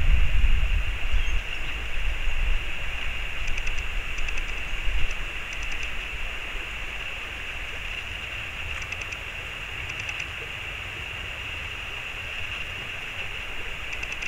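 Steady rush of flowing stream water, with a low rumble in the first couple of seconds and faint, brief high ticking trills now and then.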